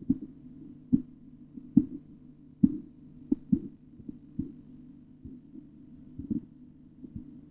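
Korotkoff sounds heard through a stethoscope over the brachial artery while a blood-pressure cuff deflates: short, regular thuds about once a second, growing fainter over the second half.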